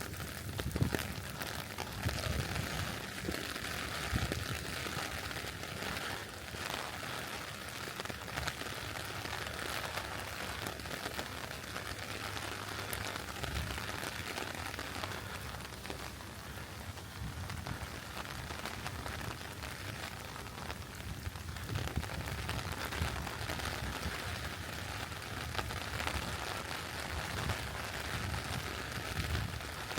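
Steady rain falling, an even hiss of rain on leaves and ground.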